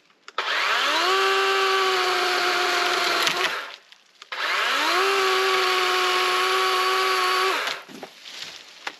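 DeWalt DCCS620 20V cordless chainsaw run twice while cutting into a leaning fallen trunk. Each run spins up over about half a second to a steady electric whine, holds for about three seconds, then winds down, with a short pause between the two runs.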